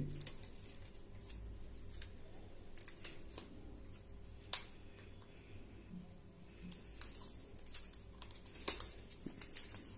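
Teflon tape being pulled off its roll and wound around the threads of a water-tank filter. It makes faint scattered ticks and rustles, with a sharper click about four and a half seconds in and a run of clicks near the end.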